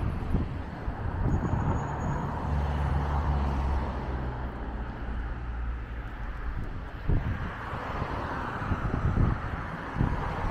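City street traffic: cars running and passing, with a steady low engine drone that fades out about seven seconds in.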